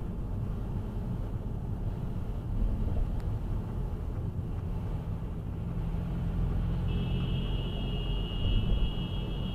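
Steady low rumble of a car driving on a wet road, picked up inside the cabin by a dash cam. About seven seconds in, a steady high-pitched tone comes in and holds for about three seconds.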